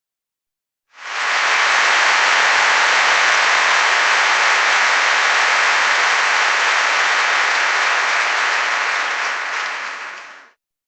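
Audience applauding: dense, even clapping that comes in quickly about a second in, holds steady, and fades out near the end.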